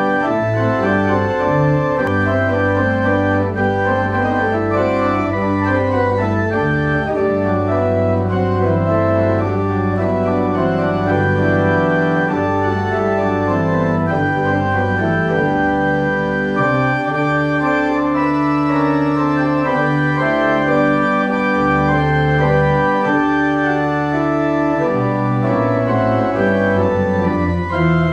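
Organ playing slow, sustained chords over deep held bass notes, the harmony changing every few seconds.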